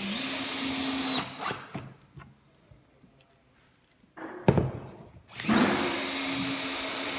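Cordless drill-driver in first gear driving a long screw through a pine handrail into the newel post: a steady motor whine for about a second, a quiet pause, one sharp knock, then a second run of the drill.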